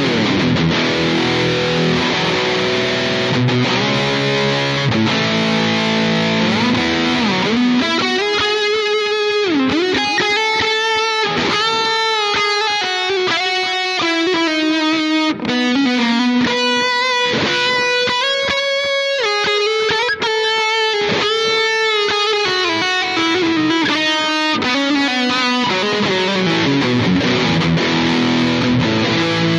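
Electric guitar played through a NUX MG-100 multi-effects processor on its "1B.SOLO" lead preset. Sustained notes at first, then from about eight seconds a singing lead line with string bends.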